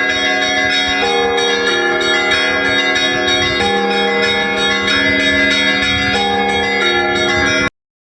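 Church bells ringing: several bells of different pitches struck in a repeating pattern, each strike ringing on. The ringing cuts off suddenly near the end.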